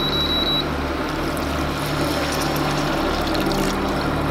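Water poured from a kettle into a steel pan of meat and vegetables, a steady pouring splash that starts about a second in, over a low steady hum. A few short high beeps sound at the very start.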